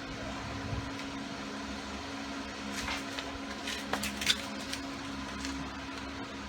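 Steady low machine hum in a small garage, with a few light clicks and taps of small metal parts being handled while piston rings are fitted. The clicks come about halfway through, the sharpest a little after four seconds in.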